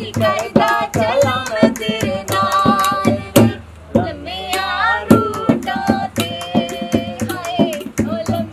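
A woman singing a folk song in a high voice, keeping time with quick, sharp taps of her fingers on a steel water pot played as a drum.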